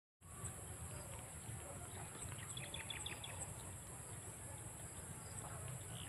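Faint field ambience: a steady high-pitched insect drone, with a quick run of five or six short bird chirps about two and a half seconds in, over a low rumble.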